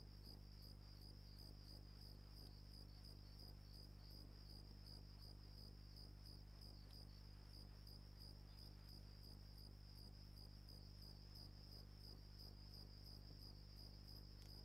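Faint, steady chirring of crickets, with a low hum beneath.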